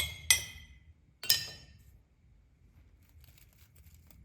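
Three bright, ringing clinks in the first second and a half, each dying away quickly, followed by a few faint ticks.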